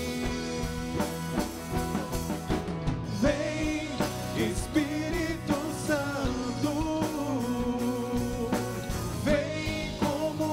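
A Catholic pop-rock worship song with a drum kit and band; a solo singer takes up the melody about three seconds in.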